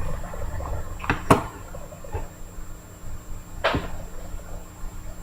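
A few short, sharp clicks and knocks, three of them clear: two close together about a second in and one a little past the middle, over a steady low electrical hum.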